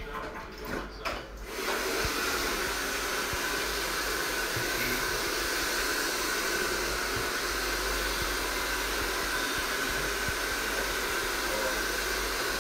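Handheld hair dryer blowing on a man's hair. It switches on about a second and a half in and then runs at a steady hiss.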